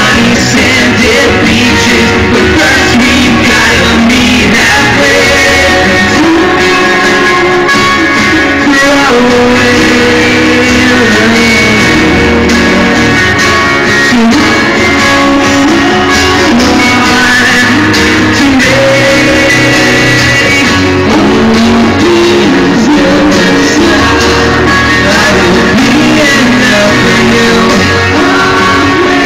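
Live rock band playing loud: a male singer's voice over guitars and the full band.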